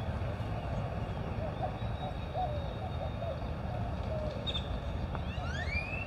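Wind rumbling on the microphone, with birds calling in the background: a run of short, wavering low calls, and a rising call near the end.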